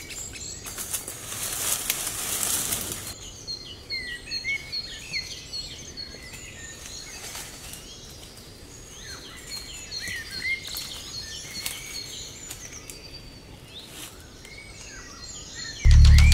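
Forest birds chirping and calling, many short overlapping calls. About a second in there is a rushing, rustling noise lasting about two seconds, and music comes back in just before the end.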